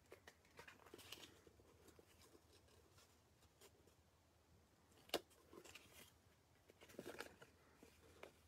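Faint rustling and light taps of cardstock and twine being handled on a craft mat, with one sharp click about five seconds in.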